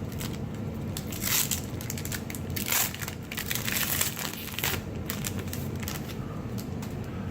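Foil wrapper of a Magic: The Gathering booster pack being torn open and crinkled, in irregular crackly rustles with a few louder crinkles.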